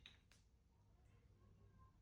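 Near silence: room tone with a faint click about a third of a second in.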